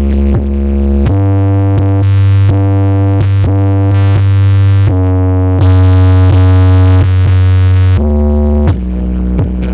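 Electronic dance music with heavy synth bass played loud through a homemade miniature sound system with 12-inch woofers. About a second in, a long held synth chord over a steady deep bass takes over, and near the end the beat returns.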